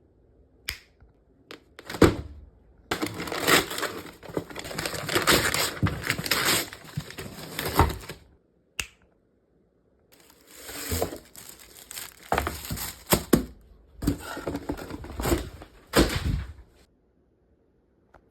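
Rapid keystrokes on a Razer Huntsman Mini 60% keyboard: a few single key presses, then two long runs of fast typing clatter separated by a short pause.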